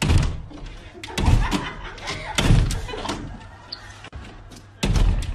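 Glass sliding door banging in its frame, four heavy bangs at uneven intervals, as a dog paws at it from outside and a person holds it shut.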